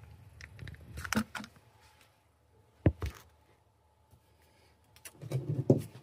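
Scattered clicks, taps and rattles of small hard tools and parts being handled, with two sharp knocks about three seconds in and a burst of clatter near the end.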